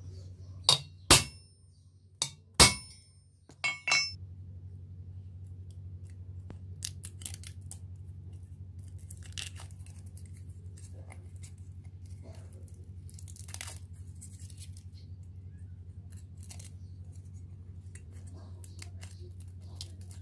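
A small hammer strikes the back of a knife blade pressed onto a folded thin sheet-metal star on a wooden board: six sharp metallic strikes in three quick pairs in the first four seconds. Then faint crinkling and ticking of the thin metal as fingers bend the star's points, over a steady low hum.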